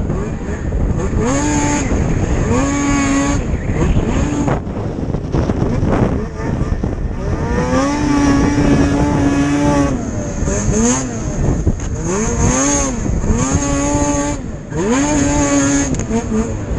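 Snocross race snowmobile's two-stroke engine revving up and easing off over and over, with one longer rev held for about two seconds midway.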